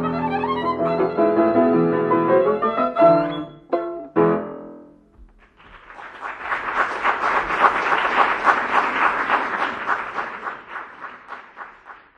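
Violin and piano playing the closing bars of a classical piece, ending on strong final chords about four seconds in. After a short pause, audience applause rises and then fades out near the end.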